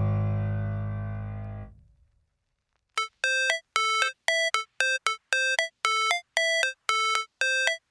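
Background music: a held keyboard chord fades out, a second of silence, then a synthesizer plays a repeated beep figure, short two-step notes stepping up in pitch, about three a second.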